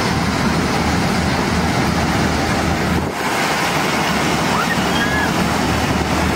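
Channy combine harvester cutting ripe paddy: a steady mechanical noise from its engine and threshing machinery, with a low hum underneath.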